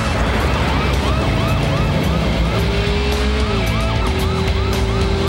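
Police siren in a fast yelp, three or four rising-and-falling chirps a second with a short break in the middle, over the dense noise of a car chase and music.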